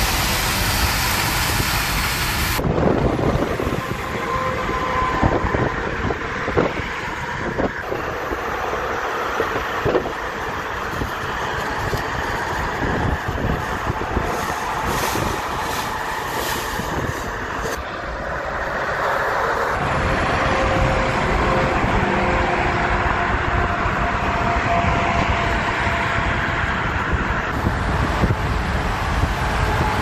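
Highway traffic noise heard from a moving vehicle alongside semi trucks: a steady rush of tyres, wind and big-rig engines. The sound changes abruptly twice, about 3 seconds in and about two-thirds of the way through, with scattered short knocks early on.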